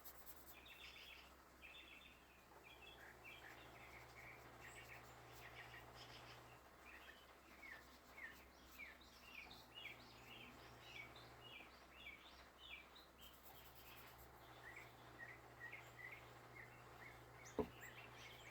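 Faint chirping of small birds: runs of short, high chirps, some sliding in pitch, with one light tap near the end.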